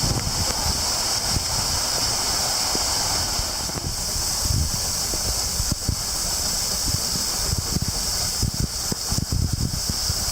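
Waterfall pouring steadily, a constant hiss of falling water swollen by rain, with wind buffeting the microphone in uneven low gusts.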